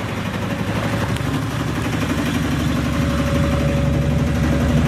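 A small fishing boat's engine running steadily, its low hum growing gradually louder.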